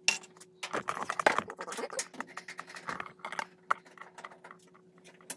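Irregular small metal clicks and taps from a hand nut driver working on the quarter-inch hex nuts of a Whirlpool Duet front-load washer's cabinet, over a faint steady hum.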